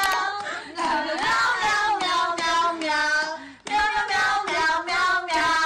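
A high, child-like voice singing a short jingle in quick, evenly paced notes, breaking off briefly about three and a half seconds in before the phrase starts again.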